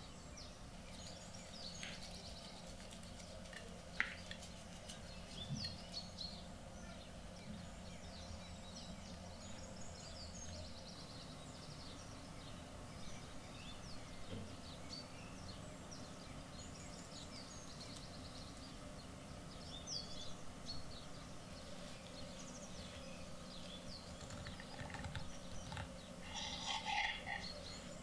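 Faint ambience of small birds chirping, short scattered calls throughout over a low steady hum, with a louder cluster of calls near the end. A single sharp click sounds about four seconds in.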